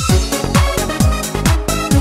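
Instrumental electronic dance music with a steady kick-drum beat and short synth notes over it, no vocals.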